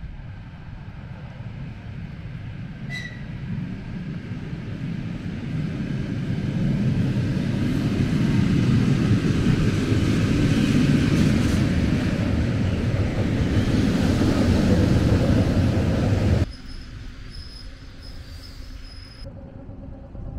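A rolling vehicle rumble that swells over several seconds, holds loud, then cuts off abruptly about three-quarters of the way in, leaving a quieter background with a faint high steady tone.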